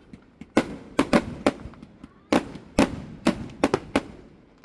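Fireworks going off: about ten sharp bangs in irregular clusters, each with a short echo, and a brief lull between the first cluster and the second.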